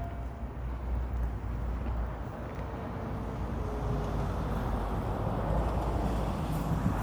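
Wind rushing over the microphone with a steady low rumble, growing a little stronger near the end.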